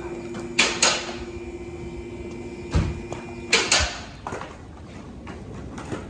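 Sharp metallic clunks and knocks in an auto repair shop, five in all, over a steady machine hum. About three and a half seconds in, the hum stops and it goes quieter.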